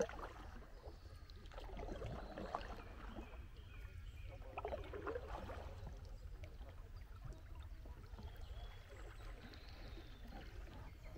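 Kayak paddle strokes dipping into and splashing the river water, with drips, coming irregularly a few seconds apart over a low steady rumble.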